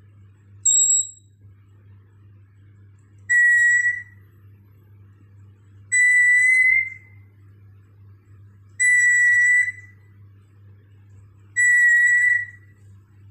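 African grey parrot whistling a ringtone imitation: one short high chirp, then four steady whistled notes of the same pitch, each just under a second long, repeated about every three seconds.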